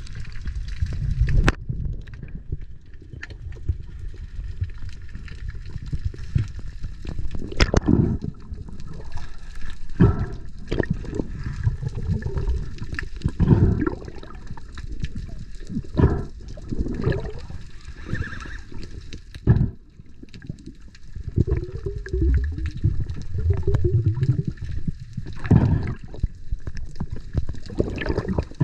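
Muffled underwater sound as a free-diver swims with fins: a steady low rushing and gurgling of water. Irregular sharp clicks and knocks come every second or two, with a bubbly gurgle about three-quarters of the way through.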